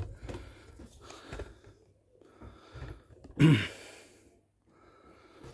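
A man's short voiced exhale, like a sigh, falling in pitch, about three and a half seconds in, amid faint handling rustles.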